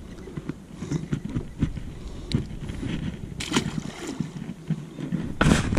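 Close handling noises of fishing gear in a boat: light clicks and rustles, with two louder rustling bursts, about three and a half and five and a half seconds in.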